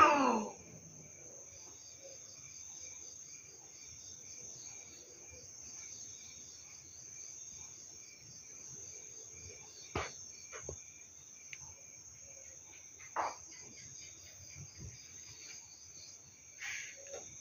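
Night insects, crickets by the sound of it, chirping in a regular rhythm over a steady high hiss. A cat's drawn-out yowl cuts off just at the start, and a few sharp clicks come near the middle and again near the end.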